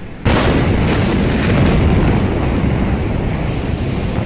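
Blast of the 2020 Beirut port ammonium nitrate explosion reaching the phone: a sudden loud boom about a quarter second in, then a heavy, steady rumbling roar that keeps on.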